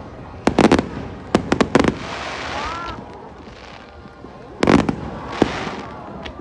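Fireworks going off: a run of sharp bangs and crackles in the first two seconds, a stretch of hissing, then two louder bursts after about four and a half seconds.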